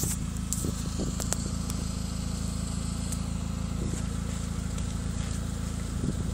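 Saab 9-5 Aero's turbocharged engine idling steadily through a custom 3-inch turboback exhaust with two mufflers, a low, even exhaust note with no revving.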